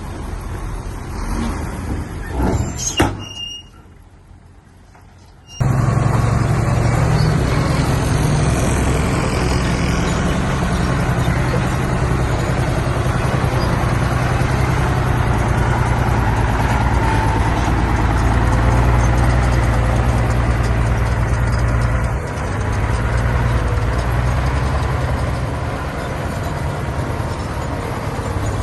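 Shantui bulldozer's diesel engine running steadily and loud, with a deep low drone, starting abruptly about five and a half seconds in after a short quiet stretch. A couple of sharp knocks come about three seconds in.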